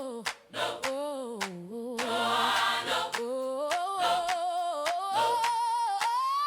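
Gospel singing: a voice carries long, wordless held notes that slide and waver with vibrato, climbing to a high note near the end.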